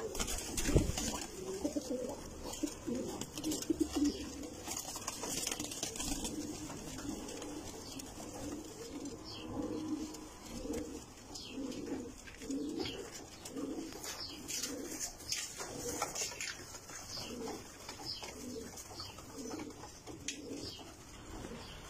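A loft full of domestic pigeons cooing, many low call notes overlapping and repeating without pause. There is a single thump about a second in.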